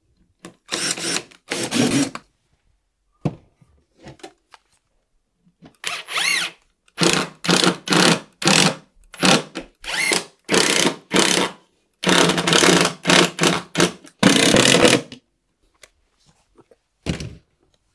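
Power drill with a countersinking bit run in a series of short bursts, most under a second, cutting countersinks in wood for screws.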